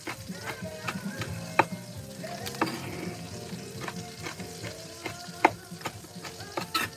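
Kitchen knife striking a cutting board while chopping roasted peppers, in irregular single strokes with the sharpest one near the end, over a steady sizzle from a pan cooking a roux on the stove.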